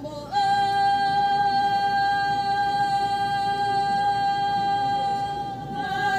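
Two women singing a Chakhesang Naga folk song in unison, holding one long steady note for about five and a half seconds before the melody moves on again near the end.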